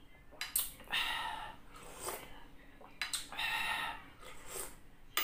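Eating noises at close range: loud slurps of spicy chicken broth sucked from a spoon, about three of them, with short lip and mouth clicks between.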